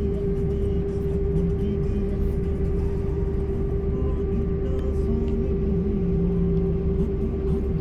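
Road and engine noise heard inside a moving vehicle's cabin: a steady low rumble with a constant droning tone over it.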